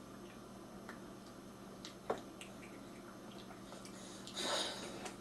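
Quiet room tone with a steady low hum, a few faint ticks and one sharp click about two seconds in, then a brief hissing rustle near the end.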